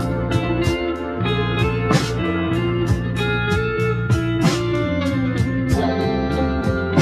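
Background music: a guitar-led instrumental with a steady beat and some gliding notes.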